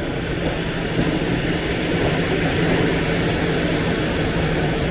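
Electric commuter train running: a steady rushing noise with a low hum.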